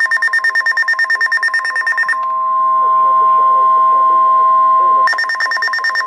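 Weather radio warning alert: a fast-pulsing electronic beep over the steady 1050 Hz NOAA Weather Radio warning alarm tone. About two seconds in the beeping stops, leaving the steady tone alone for about three seconds, and then the beeping resumes. The alert signals a newly issued severe thunderstorm warning.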